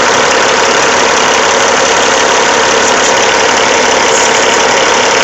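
Caterpillar C15 inline-six diesel engine idling steadily. The engine is pushing gas into its cooling system, building enough pressure that the expansion-tank cap cannot be opened.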